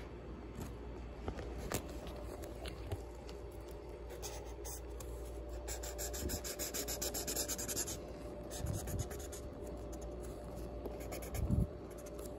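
Marker scratching across paper in quick back-and-forth colouring strokes, a fast run of them from about six to eight seconds in. Two soft low thumps come later, the second the loudest moment.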